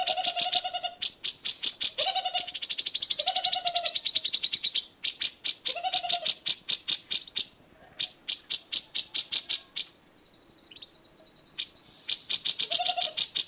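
Grey-cheeked bulbul (cucak jenggot) song: fast, sharp chattering trills mixed with short lower whistled notes. The song breaks off briefly about ten seconds in, then resumes.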